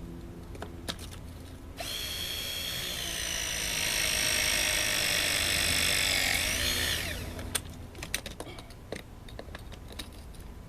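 Electric power tool motor starting abruptly and running at a steady high-pitched whine for about five seconds, then winding down in pitch and stopping, followed by a few sharp clicks and knocks.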